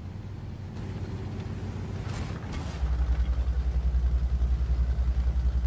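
Car engine and road rumble heard through a dashcam: a low rumble with a hiss that builds, a short noisy swish about two seconds in, then a much louder low rumble from about three seconds, pulsing several times a second.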